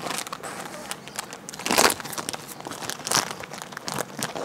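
Crinkling and crackling of a shiny plastic snack packet handled and torn open by hand, in irregular bursts, the loudest about two seconds in and another a little after three seconds.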